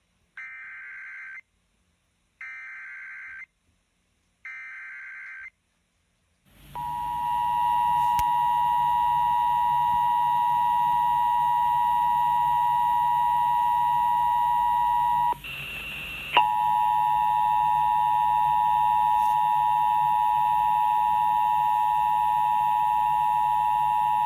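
Emergency Alert System test signal over radio. First come three one-second bursts of SAME header data tones, a second apart. Then, from about seven seconds in, the EAS two-tone attention signal (853 and 960 Hz together) sounds as a loud steady tone, dropping out briefly about halfway through.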